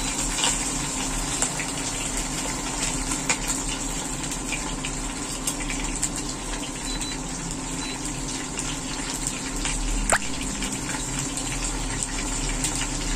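Whole large fish frying in hot oil in a stainless steel wok: a steady sizzle with scattered pops of spattering oil.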